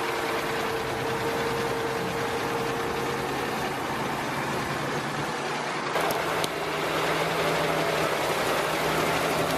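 Heavy tractor engine running steadily, with the sound changing abruptly about six seconds in as the footage cuts to another machine.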